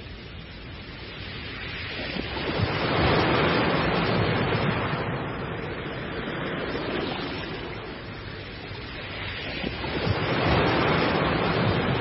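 Ocean surf: waves breaking and washing. The wash swells loudly twice, once about three seconds in and again near ten seconds, and eases between.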